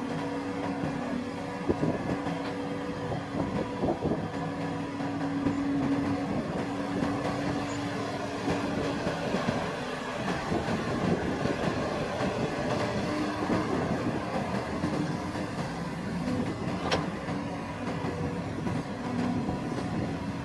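Heavy machinery running steadily, a constant engine drone with humming tones and rattling.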